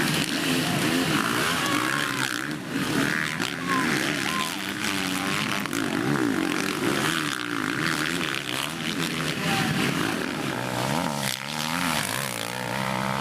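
Several motocross bikes racing round the track together, their engines revving up and falling back over and over, the overlapping engine notes rising and dropping with each throttle change.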